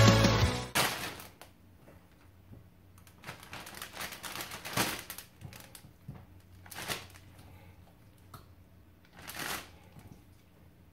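Zip-top plastic bag of raw chicken pieces crinkling and rustling as it is handled, in several short scattered bursts. The tail of the intro music fades out right at the start.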